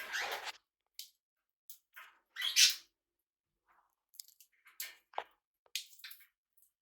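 Pet budgies and cockatiels making a string of short, scratchy sounds with gaps between, the loudest about two and a half seconds in.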